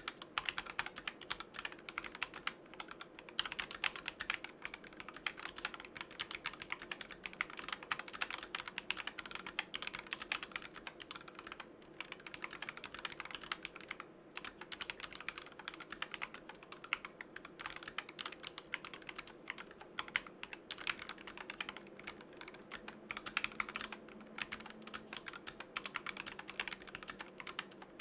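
Typing on a mechanical keyboard fitted with lubed Tangerine linear switches and PBT keycaps: a steady stream of fast keystroke clacks, with a few short pauses.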